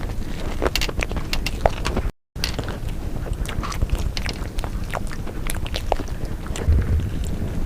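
Close-miked eating sounds: irregular crisp clicks and crunches of chewing and biting food, over a low rumble. The sound drops out briefly about two seconds in.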